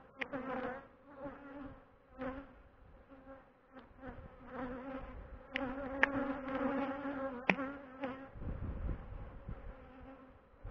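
Honeybees buzzing around an opened hive, a wavering hum that swells and fades as bees fly close past. A few sharp clicks come through, and a low rumble comes in near the end.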